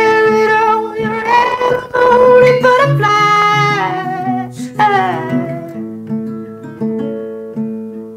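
A song on the soundtrack: a voice singing long, held notes over acoustic guitar. The voice stops about five seconds in and the guitar carries on.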